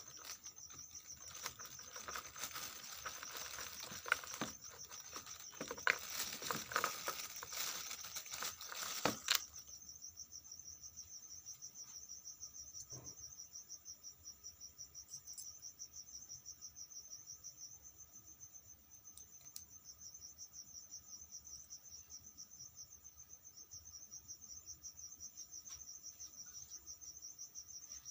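Crickets chirping steadily, a high, fast-pulsing trill. For the first nine seconds or so, loud close rustling and handling noise with sharp clicks runs over it and then stops abruptly.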